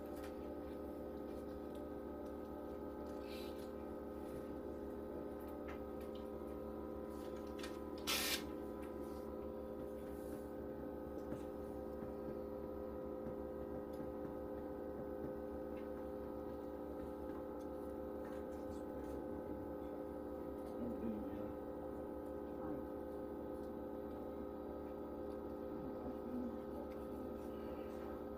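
A machine running in the room: a steady hum of several held tones. One sharp click about eight seconds in is the loudest sound.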